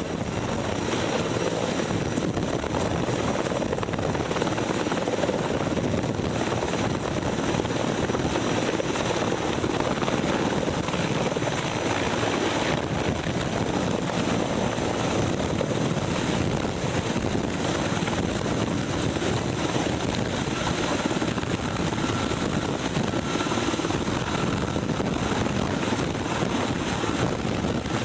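Helicopter running close by, a loud, steady rotor and engine noise with no let-up.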